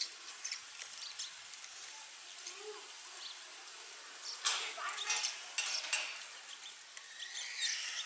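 House sparrow fluttering and pecking at a car's wing mirror, attacking its own reflection as a territorial rival, with a louder flurry of wingbeats and taps about four and a half to six seconds in. A few short sparrow chirps come near the end.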